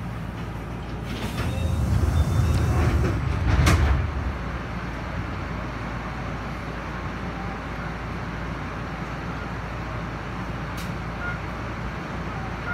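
Stopped Enshu Railway 'Akaden' electric train running steadily at a platform, its onboard equipment making a constant mechanical noise. From about one to four seconds in a louder low rumble swells and ends in a short sharp click.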